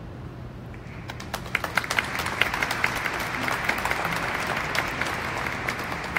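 Audience applause in a large stone church, starting about a second in and quickly building to a steady clapping.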